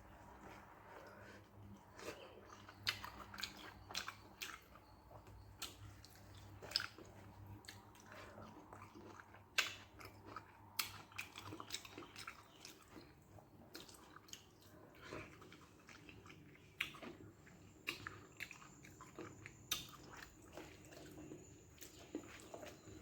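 Close-up eating sounds: a person chewing rice with a pepper kara kuzhambu of brinjal and okra, with many irregular, sharp wet mouth clicks and smacks.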